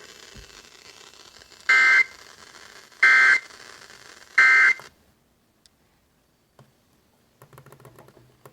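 Emergency Alert System End of Message signal: three short, loud two-tone digital data bursts (SAME 'NNNN' code), about a second and a half apart. They play over a steady hiss of the broadcast channel, which cuts out about five seconds in, leaving a few faint clicks near the end.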